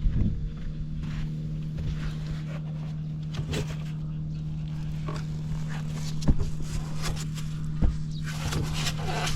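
Honda Cabina 50 scooter engine running at a steady, unchanging pitch, with a few sharp knocks here and there.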